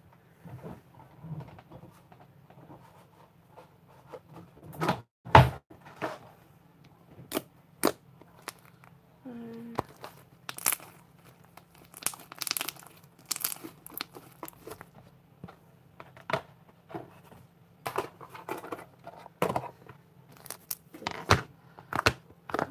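Homemade white fluffy slime being squeezed and pulled apart by hand, crackling and tearing, among scattered knocks and clicks on the table. Near the end a plastic tub is handled.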